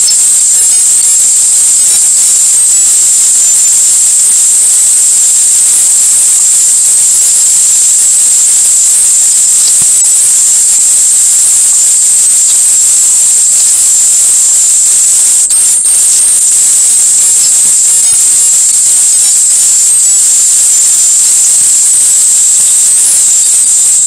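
A loud, steady, high-pitched hiss like static, unbroken and with little else under it.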